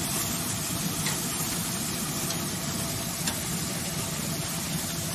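Meat sizzling on the hot grate of a wood-fired grill as pieces are laid on, a steady hiss with a few faint ticks.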